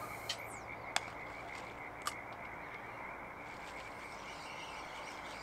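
A chorus of frogs calling steadily at the lakeside, a continuous high trilling, with two short clicks about one and two seconds in.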